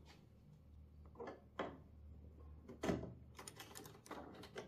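Hard 3D-printed plastic parts clicking and knocking together as a suspension part is fitted onto a 3D-printed RC car chassis: a series of light, irregular clicks, the loudest about three seconds in.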